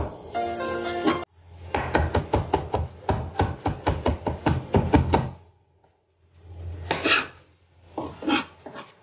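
Kitchen knife mincing garlic on a cutting board: a fast run of chops, about five a second, for several seconds, then two shorter bursts of chopping near the end. A brief snatch of music sounds at the start.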